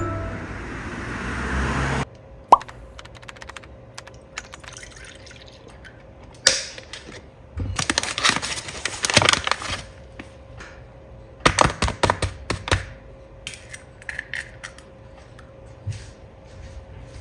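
A rush of noise that cuts off abruptly about two seconds in, then batter ingredients going into a mixing bowl: liquid poured in, flour added and an egg cracked in, heard as splashes, drips and clicks in several short clusters.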